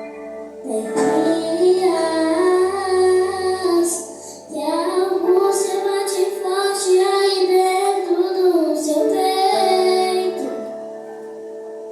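A worship song: a high voice, likely a woman's, sings two long phrases over held instrumental chords, then drops out near the end, leaving the chords sounding alone.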